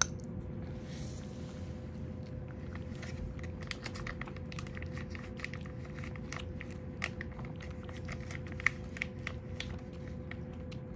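Domestic cat chewing wet fish cat food from a bowl: many small, irregular wet chewing clicks and smacks, coming thickest in the middle and later part.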